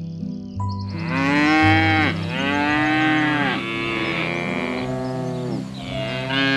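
Bovine lowing: a string of long, drawn-out moos, one after another, starting about a second in, over a soft musical backing.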